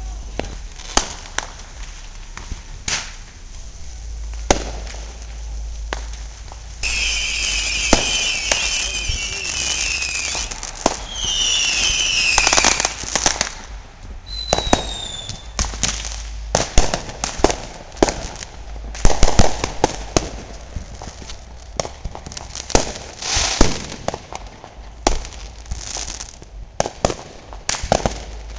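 Fireworks and firecrackers going off all around, with sharp bangs and pops at irregular intervals. A whistling firework wavers for about three seconds, followed by two shorter falling whistles. Near the middle, the loudest bangs come in quick clusters.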